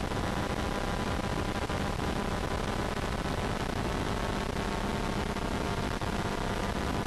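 Steady hiss with a faint hum: background noise of the recording, with no music or voice.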